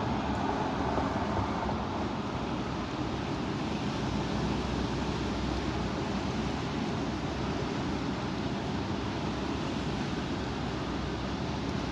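Strong wind blowing in a steady rush, with a low rumble of wind on the microphone.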